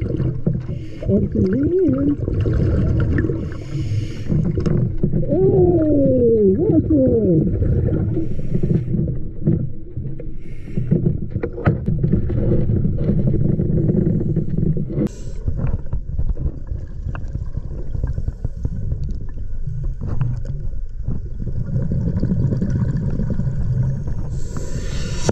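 Scuba diving underwater: a diver's regulator breathing, with a steady low rumble of exhaled bubbles. Wavering, gliding tones sound in the first couple of seconds and again about five to seven seconds in.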